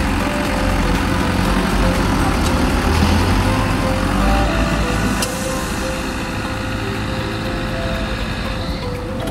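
Diesel engines of Farmtrac tractors running hard under load as they drag a loaded trolley through soft sand. The noise is loudest about three seconds in and eases off after about five seconds.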